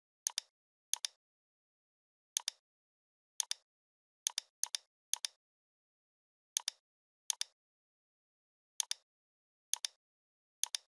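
Computer mouse left-button clicks, about a dozen at uneven intervals, each a quick double tick of press and release, with dead silence between.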